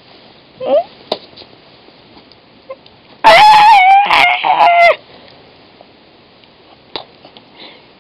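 A loud, high-pitched squawk, wavering in pitch, starts about three seconds in, breaks briefly, and stops after nearly two seconds. Earlier come a few faint clicks and a short rising squeak.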